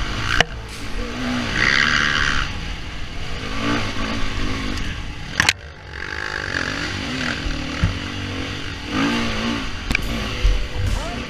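Dirt bike engine revving up and down over and over, heard close from the bike with wind rushing over the microphone. A few sharp knocks cut through, one about half a second in, one near the middle and one near the end.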